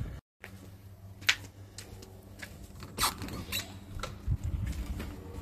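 Footsteps on gravel and a door being unlatched and pushed open, with a few sharp clicks and low thumps about four seconds in.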